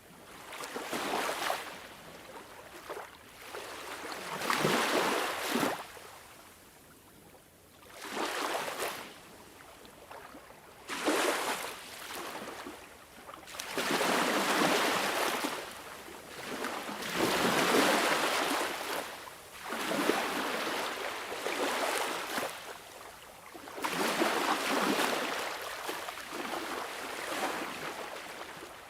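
Sea waves washing in on the shore, each one a rushing surge that swells and fades, arriving about every three seconds.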